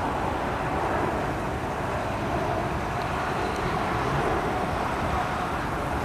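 Steady roar of a twin-engine regional jet airliner flying over on its landing approach.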